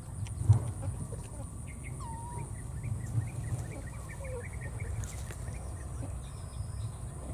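Low rumble of wind and handling on a handheld microphone moving through tall grass, with a sharp thump about half a second in. Over it, a run of short, faint high chirps and one brief squeal-like call about two seconds in.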